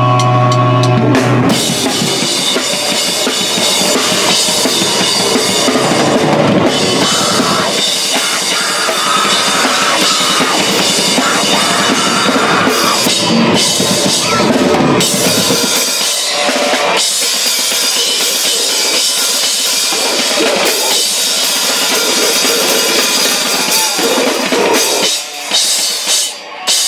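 Live rock band playing loud: a drum kit with bass drum and crashing cymbals heard close up, together with amplified guitar. The playing breaks off in short gaps near the end.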